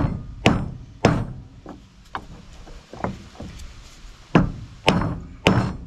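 A series of about nine sharp hammer taps in irregular groups, driving a corroded bearing down off a marine diesel fresh water pump shaft that is supported on wooden blocks.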